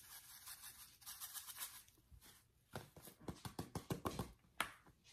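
Black pepper being dispensed into the pot: quick rhythmic scratchy strokes for about two seconds. Then a series of sharp knocks and clicks.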